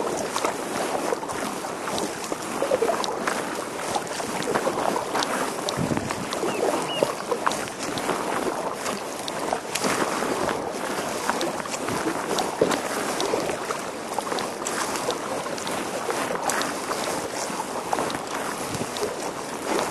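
Water splashing and lapping against a kayak's hull as it is paddled, with irregular small splashes from the paddle strokes and wind buffeting the microphone.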